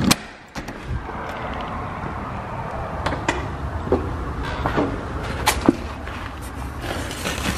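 A door latch clicks as the front door opens, then a steady low outdoor rumble with scattered footsteps and light knocks as a cardboard parcel is picked up.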